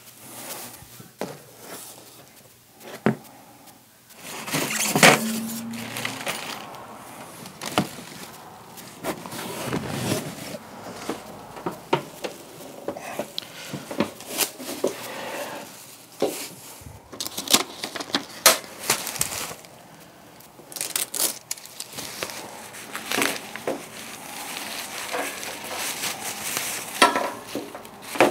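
Unpacking noises: cardboard box flaps and plastic wrapping being handled, with crinkling and rustling and scattered knocks and clicks.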